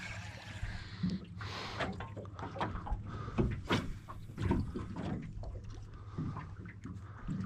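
Irregular small knocks and splashes of water around a small aluminium fishing boat, over a low steady hum.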